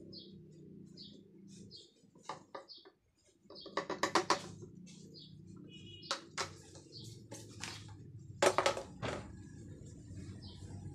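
Bursts of sharp clicks and knocks from hands working a motorcycle wheel and tyre, the loudest about 4 s and 8.5 s in. Short high chirps repeat about twice a second over a low steady hum.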